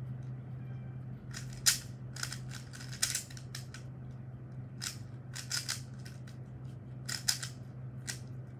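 YJ Ruilong Rubik's cube being turned by hand: irregular clusters of sharp plastic clicks and clacks, with one loud clack about two seconds in, over a steady low hum.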